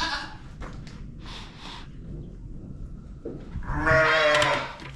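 Hungry goats bleating for hay: a short bleat right at the start, then one loud, long bleat near the end.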